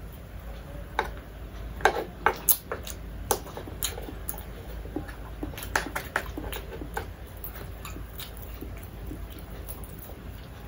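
A person eating close to the microphone: chewing with an irregular run of sharp clicks and smacks, thickest between about one and seven seconds in, over a low steady hum.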